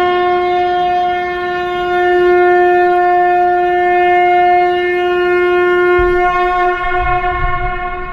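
Conch shell (shankh) blown in one long, steady note, turning unsteady near the end as the breath runs out.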